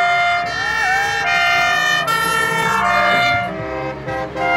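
Convoy trucks' horns blaring in long steady blasts, several pitches overlapping and changing every second or so.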